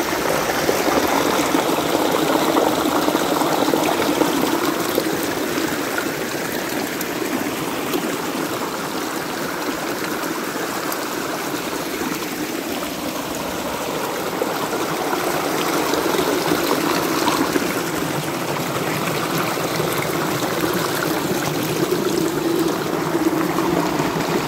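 Muddy rainwater runoff flowing and trickling along a small weeded ditch: a steady sound of running water.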